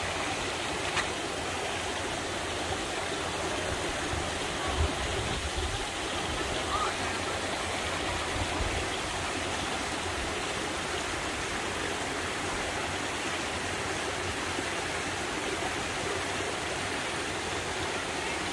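Mountain stream rushing over granite boulders: a steady, even rush of water, with a couple of faint knocks.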